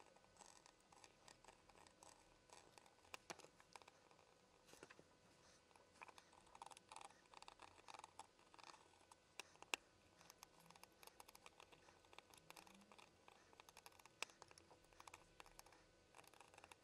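Very faint, scattered clicks and scratches of a screwdriver tip and soldering-iron tip against a hard drive's circuit board, prying at the SATA connector while its solder joints are heated.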